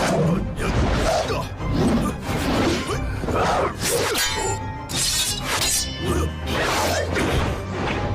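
Dramatic orchestral score under martial-arts fight sound effects: repeated whooshes and sharp hits, roughly one a second.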